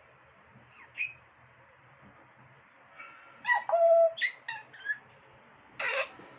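Pet parrot calling: a short rising note about a second in, a loud cluster of pitched whistles and squawks in the middle, and one harsh squawk near the end.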